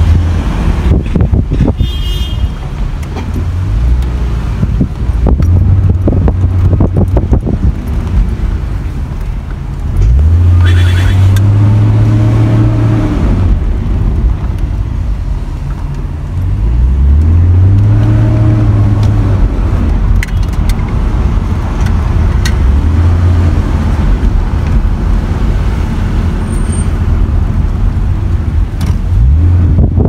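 Car engine and road rumble heard from inside a moving car. The engine note rises and holds twice, about a third of the way in and again just past halfway, as the car picks up speed.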